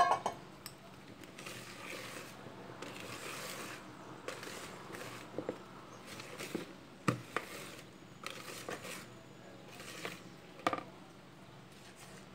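Hand whisk stirring sponge-cake batter in a bowl: swishing through the thick mixture, with scattered sharp taps and scrapes of the whisk against the bowl's sides, the loudest about seven and eleven seconds in.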